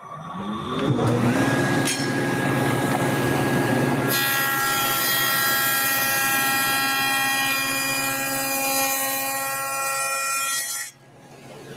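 Table saw with a stacked dado head starting up, its motor rising to speed over about a second and running, then cutting a test dado across a plywood panel for about seven seconds; the cut stops abruptly near the end.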